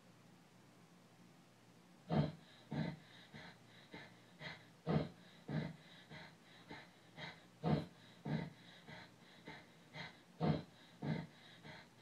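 A person panting heavily, about two quick gasping breaths a second, starting about two seconds in.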